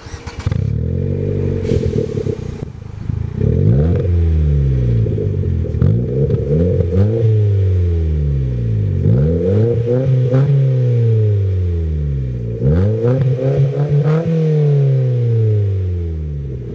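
Ford Fiesta Mk7's four-cylinder petrol engine breathing through a stainless steel Cobra Sport cat-back sports exhaust with twin tailpipes. It starts about half a second in and settles to idle, then is revved several times with the car standing still, the pitch climbing and dropping back with each rev.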